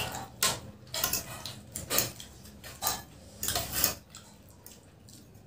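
Cutlery scraping and clinking against plates as noodles are eaten, in short separate strokes, falling quiet for the last second or so.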